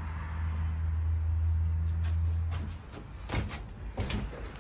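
A low, steady motor hum stops a little under three seconds in, followed by a couple of short knocks.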